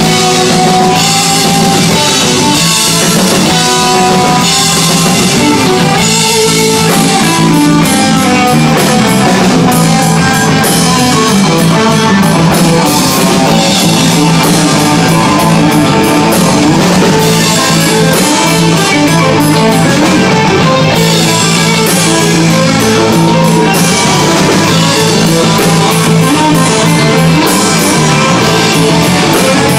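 Live rock band playing loud and steady: electric guitars over a drum kit, with a sustained low bass line.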